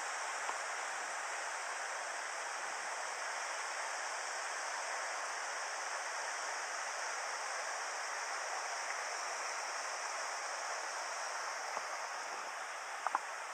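Mountain river water rushing steadily over rocks, an even hiss with no let-up, with a couple of faint clicks near the end.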